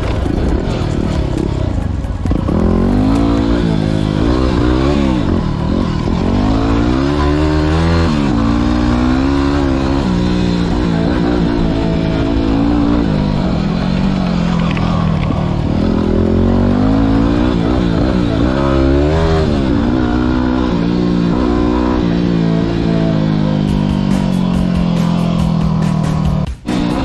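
Yamaha WR250R's single-cylinder four-stroke engine on a dirt bike being ridden, revving up and falling back again and again as the rider works the throttle and shifts gears.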